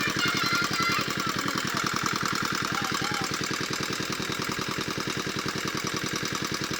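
Small engine running steadily with a fast, even knocking beat.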